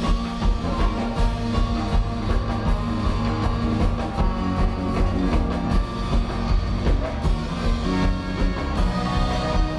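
Rock-style music with drums and guitar, a steady beat about twice a second.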